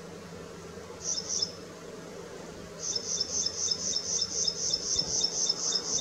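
High-pitched insect chirping: a short burst of a few chirps about a second in, then a long, even run of rapid chirps, about five a second, from about halfway through.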